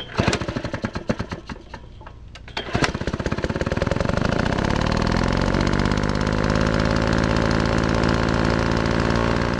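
Motor sound effect on a logo intro: rapid, uneven clattering strikes for the first three seconds, then a loud, steady, fast mechanical rattle like a running engine, cutting off abruptly at the end.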